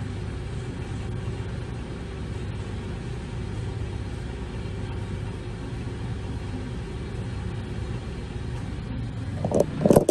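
Timesavers 2200-series dual-head wide belt sander running steadily with its second head up to speed: a continuous low hum and whir.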